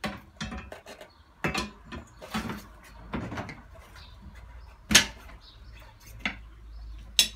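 Manual tire changer in use: irregular knocks and clunks of its metal bars as the tire bead is levered up and off an alloy rim, the sharpest about five seconds in.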